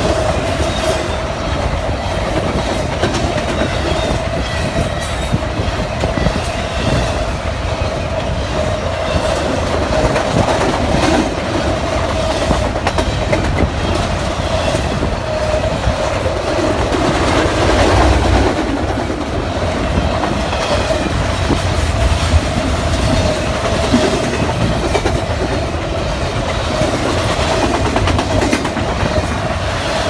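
Double-stack container freight cars rolling past at close range, their wheels clacking over the rail joints, with a steady whining tone over the rumble.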